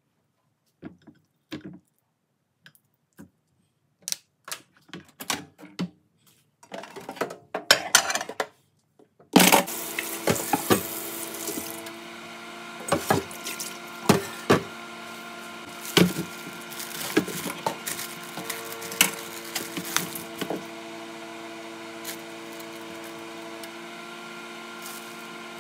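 Scattered knocks of a pot and raw beef being handled in a kitchen sink, then about nine seconds in the tap is turned on and water runs steadily into the pot and sink, with occasional knocks of the pot.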